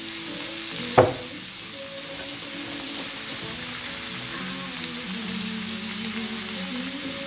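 Diced vegetables and carrot strips frying in a pan on a gas stove, a steady sizzle. There is one sharp knock about a second in, and music plays underneath.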